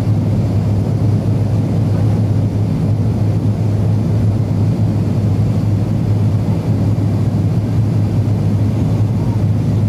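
Steady cabin noise inside an Avro RJ100 airliner on approach, with flaps extended: the Lycoming LF507 turbofans and the rushing airflow make a constant drone with a strong low hum.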